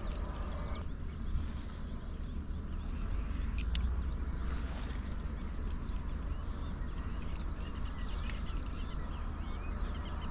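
Steady outdoor ambience: a low rumble with faint chirps over it, and one sharp click a little under four seconds in.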